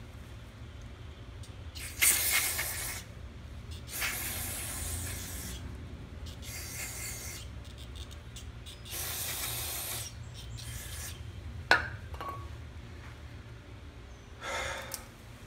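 Aerosol carburetor cleaner sprayed onto a small carburetor part to clean out water corrosion and dried ethanol sediment. It comes in about five hissing bursts of roughly a second each, the first the loudest. A single sharp click falls between the fourth and fifth bursts.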